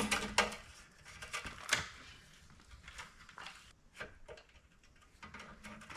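Scattered clicks and light rattles from handling a new steel control cable and its fittings on a push mower's handle, loudest at the start and again about two seconds in, thinning out later.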